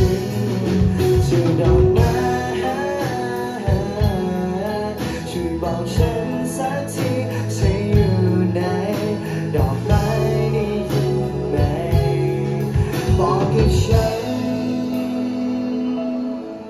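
Indie-pop band playing live on electric guitars, electric bass and a drum kit, in a passage without lyrics. The drum hits stop about fourteen seconds in, leaving the guitars and bass ringing on.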